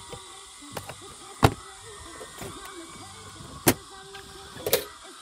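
Sharp knocks. There is a loud single knock about one and a half seconds in, another just under four seconds in, and a quick double knock near the end, with a couple of lighter clicks before the first.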